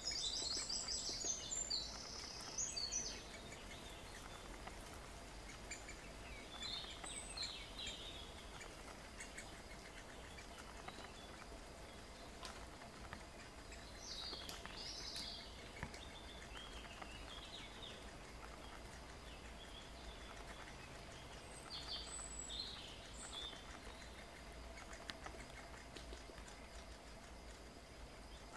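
Birds chirping in short bursts of high, quick notes, four times with pauses between, the first burst the loudest, over a faint steady outdoor background hiss.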